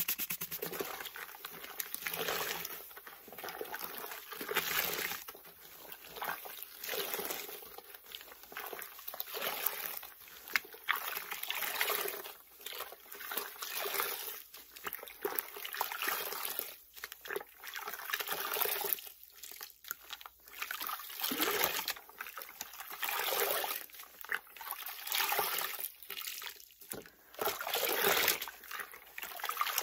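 Soaked grout sponges being squeezed by hand in a tub of sudsy rinse water: wet squelches and rinse water streaming and splashing back into the tub, in uneven surges every second or two.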